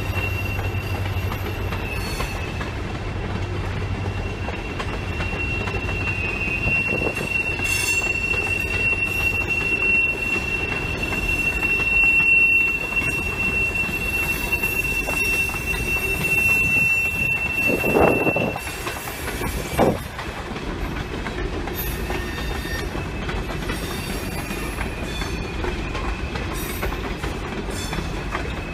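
Coal train hopper cars rolling by, their wheels giving a steady high-pitched squeal over the rumble of steel wheels on the rail. About two-thirds of the way through there are two loud knocks a couple of seconds apart, and after them the squeal carries on only faintly.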